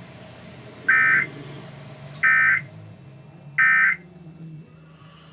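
Emergency Alert System end-of-message (EOM) data bursts: three short, identical buzzing tone bursts about 1.4 s apart. They are the digital signal that closes the alert and hands the station back to regular programming.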